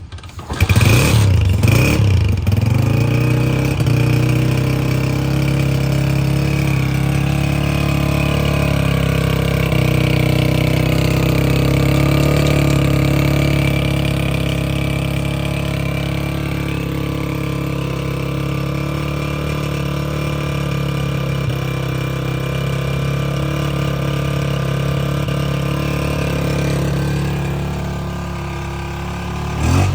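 Engine of a new 2025-model Honda motorcycle starting just after the beginning, revving briefly, then idling steadily; the idle dips a little near the end.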